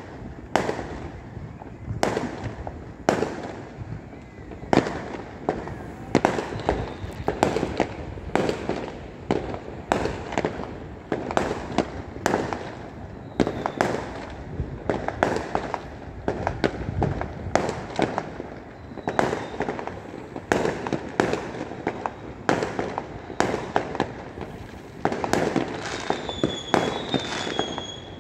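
Aerial fireworks bursting, an irregular string of sharp bangs about one or two a second over a constant crackling rumble, with a brief high whistle near the end.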